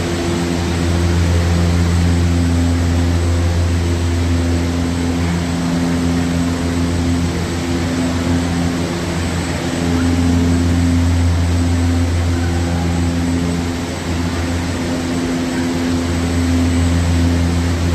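Fans of a wind machine running: a steady, loud drone with a low hum and several held tones over a rushing noise, swelling and easing every few seconds.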